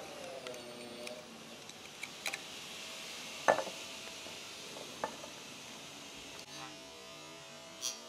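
A few light metal clicks and clinks as the steel shuttle hook of a Singer 241-12 sewing machine is handled with a metal pointer and taken out by hand; the sharpest click comes about three and a half seconds in.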